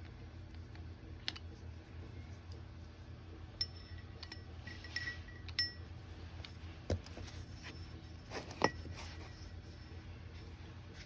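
Light metallic clinks and taps of metal parts being handled, a few of them ringing briefly, with two duller knocks later on, over a steady low hum.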